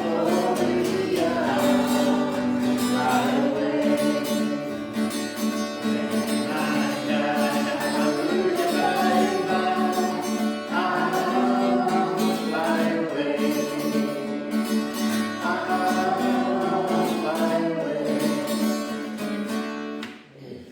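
Worship song sung with guitar accompaniment, fading out and ending near the end.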